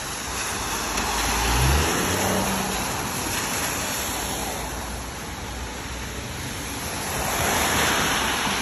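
Car traffic on a rain-soaked street: a steady hiss of tyres on wet asphalt. A passing car's engine rumbles and rises in pitch about a second and a half in, and a second swell of tyre hiss comes near the end.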